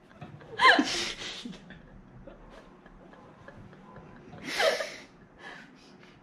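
A woman laughing in two short, breathy bursts, about a second in and again near the end, with faint clicks and knocks between them.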